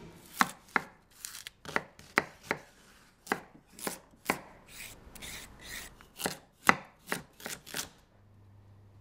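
Chef's knife slicing an onion and carrots on a wooden cutting board: a string of sharp knocks as the blade hits the board, about two to three a second, irregularly spaced. The knocks stop near the end.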